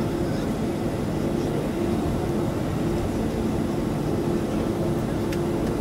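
Steady engine and cabin noise of a jet airliner taxiing, heard from inside the passenger cabin: a low, even rumble with a faint low tone that comes and goes.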